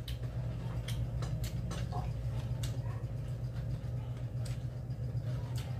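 Scattered light clicks and clinks of plates and spoon as food is handled during a meal, over a steady low hum.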